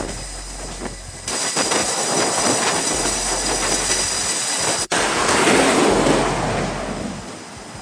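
Jet engines running on a carrier flight deck: a steady roar with a high whine comes in about a second in, breaks off abruptly a little before five seconds, then a louder roar swells and dies away near the end.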